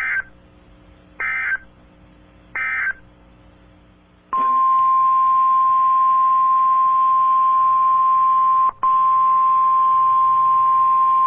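Emergency Alert System broadcast tones: three short bursts of warbling digital data, each about a third of a second long, then the single steady, loud NOAA Weather Radio attention tone, broken for an instant about three-quarters of the way through.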